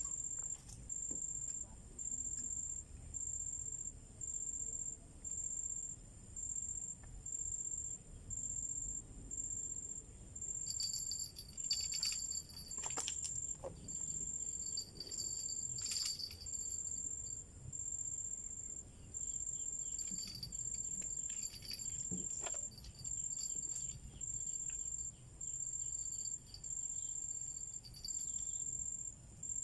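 An insect, cricket-like, calling in a steady rhythm: a high, buzzing pulse repeated about once a second. A second insect call comes and goes over it from about a third of the way in, with a few brief clicks.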